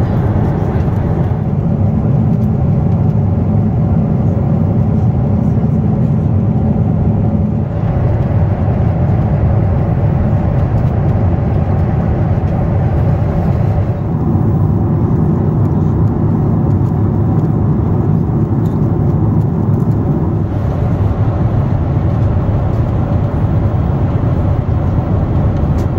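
Steady low cabin noise of a Boeing 747-8 airliner in flight, jet engines and airflow heard from inside the cabin. Its brightness changes abruptly a few times.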